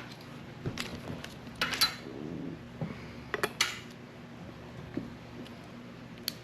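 A handful of short, sharp scrapes and clicks: a razor blade scraping hardened epoxy off a fishing rod blank. A faint steady hum runs underneath.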